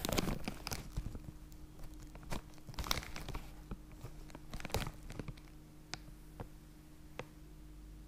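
Handling noise of a GoPro Hero4: rustling and clicks as the camera is moved and covered, busy for the first few seconds, then thinning to a few single clicks. A faint steady low hum sets in about half a second in.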